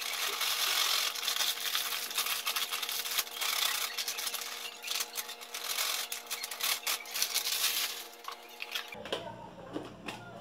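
A plastic packet of powdered milk crinkling and rustling as the powder is poured from it into a plastic container. The rapid crackle runs steadily and stops about nine seconds in.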